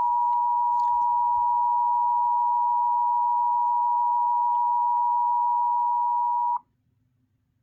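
Emergency Alert System two-tone attention signal: a loud, steady dual tone that cuts off suddenly about six and a half seconds in. It signals that an emergency alert message is about to follow.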